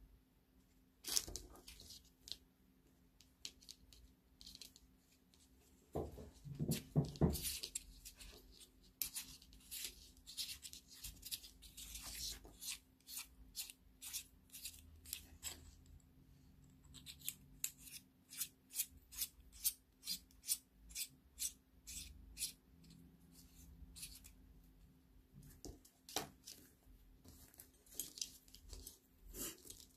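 Microphone packaging being handled and opened by hand, with cutting and tearing sounds, a brief heavier rustle and knock about six seconds in, and a quick run of sharp clicks, about two or three a second, in the second half.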